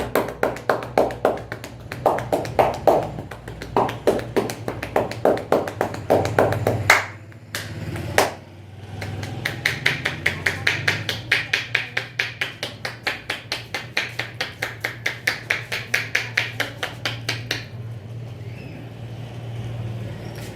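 Rapid rhythmic hand slaps of an Indian head massage: palms striking the head and neck several times a second. After a short break, a second run of brighter, sharper slaps follows and stops a few seconds before the end.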